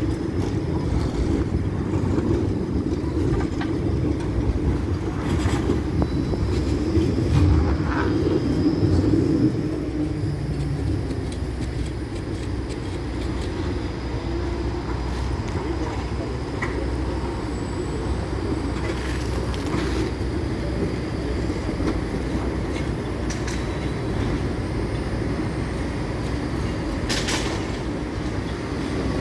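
Street traffic rumble at a tram junction as a Bombardier Cityrunner low-floor tram rolls past close by. The rumble is loudest over the first ten seconds or so, then settles to a steady lower level, with a few short sharp clicks or knocks scattered through it.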